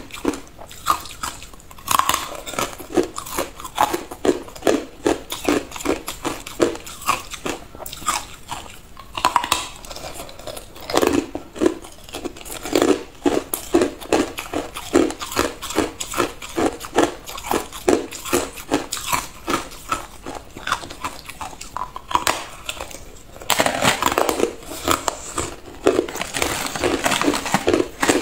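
Hard clear ice being bitten and chewed: rapid, crisp crunches, several a second, as the ice cracks between the teeth. The crunching grows thicker and more continuous near the end.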